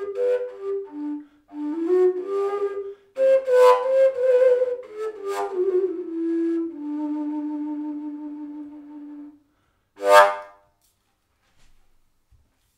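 Slovak fujarka in G, a wooden shepherd's flute, playing a short melody that ends on a long low note fading away. About a second after it, one brief loud breathy note sounds, and then the playing stops.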